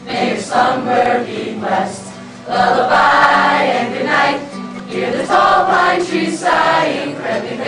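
A large group of mixed voices singing a song together in phrases, accompanied by a strummed acoustic guitar.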